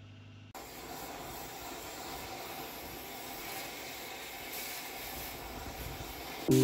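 Oxy-fuel cutting torch hissing steadily as it cuts through steel plate. It starts about half a second in.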